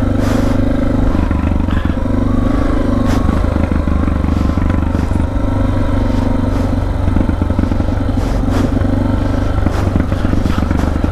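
Suzuki DR650's single-cylinder four-stroke engine running steadily at low road speed on a modified carburettor, airbox and exhaust, with occasional clicks and clatter from the loose rock track under the tyres.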